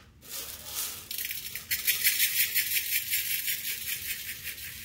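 Dry toor dal (split pigeon peas) poured from a plastic container into an empty metal pressure cooker, the grains hitting the pot's bottom as a dense stream of tiny ticks, like a hiss. The pouring starts about a second in.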